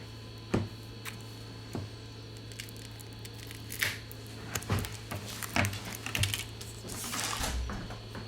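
Light clicks and taps of a smartphone, its removed back cover and small repair tools being handled on a workbench, with a brief scraping slide about seven seconds in. A steady low hum runs underneath.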